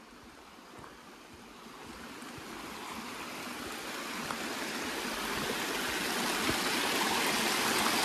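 Small spring-fed waterfall: water cascading over mossy rocks, a steady rush and splash that grows steadily louder.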